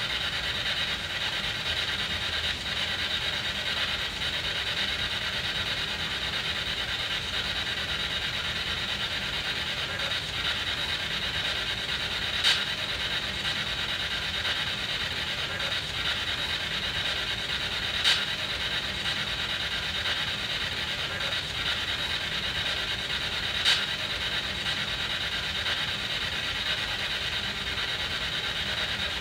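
SB7 spirit box sweeping through radio stations: a steady hiss of radio static, with three brief louder crackles a few seconds apart.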